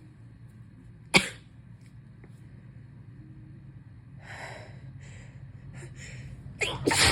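A congested woman sneezing during a sneezing fit from a feverish head cold. There is one sharp, loud sneeze about a second in, a drawn-in breath about midway, and another sneeze in two parts near the end.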